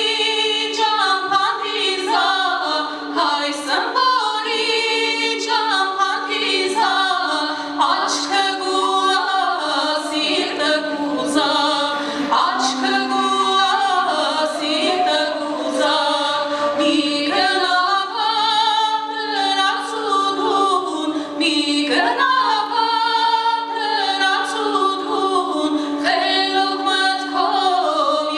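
Women singing a song on stage, their melody rising and falling over a steady held drone note.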